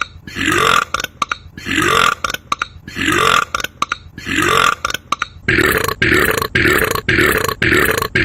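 A burp sound repeated in an even rhythm with sharp clicks between the repeats: about once a second at first, then about twice a second from about five and a half seconds in. The regular spacing points to a looped, edited burp sound, not a single live belch.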